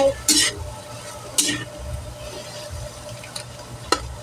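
Slotted metal spatula scraping against a steel wok while stirring scrambled egg and bitter gourd. Two short scrapes come in the first second and a half, and a sharp clack of metal on the pan comes near the end.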